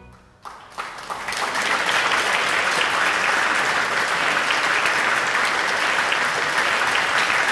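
Audience applauding: the clapping starts about half a second in, builds within a second or so and then holds steady.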